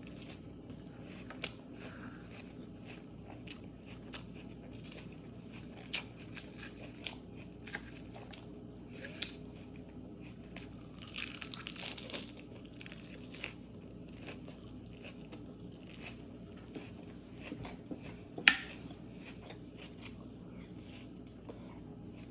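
A person eating cod and salad: quiet chewing and crunching with scattered small clicks and taps, and one sharper click about eighteen seconds in.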